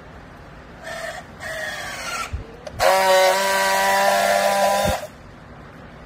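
Battery-powered handheld strapping tool working a plastic strap around a bale. Its motor whirs briefly twice, the second time falling in pitch as the strap draws tight. Then comes a louder steady buzz of about two seconds as it friction-welds the strap, cut off by a click.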